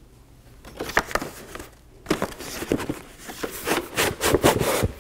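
Long cardboard box of a replacement air cleaner filter being opened by hand: irregular scrapes, taps and crinkles of cardboard and packaging as the end is worked open and the filter slid out, busier in the second half.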